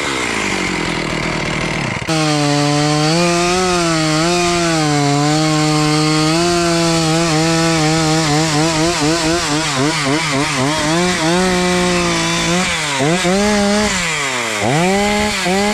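Stihl two-stroke chainsaw cutting through a felled thanni (Terminalia bellirica) log under load, its engine speed wavering as the chain bites. Near the end the engine drops off and revs back up twice.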